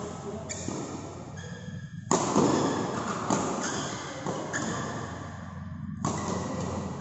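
Badminton rally: rackets striking the shuttlecock, several sharp hits about a second or so apart, each ringing on in the hall's echo.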